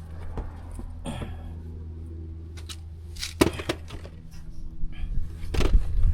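Clicks and knocks over a steady low hum as an air inflator is connected to the car tyre's valve, then, about five and a half seconds in, a louder low motor noise starts as the inflator begins pumping air into the freshly plugged tyre.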